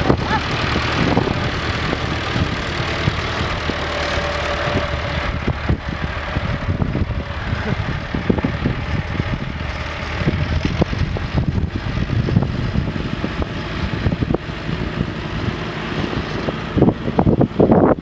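Vintage tractor engine running steadily as the tractor is driven across a field.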